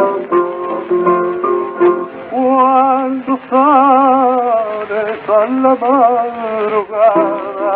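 1920 acoustic gramophone recording of a tango sung by a male voice with guitar accompaniment, the sound narrow and thin with nothing in the high end. Plucked guitar notes open, then about two seconds in the singing begins, a long wavering phrase with vibrato, and the guitar comes forward again near the end.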